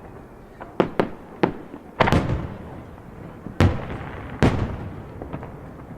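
Aerial firework shells bursting: about half a dozen sharp, irregularly spaced bangs in the first four and a half seconds, each followed by a trailing echo.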